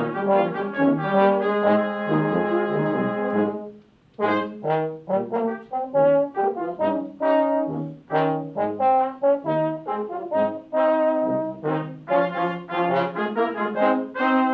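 Brass ensemble of trumpets and lower brass playing live. A chord is held for nearly two seconds and breaks off just before four seconds in. After a short pause the players come back in with quick, detached notes.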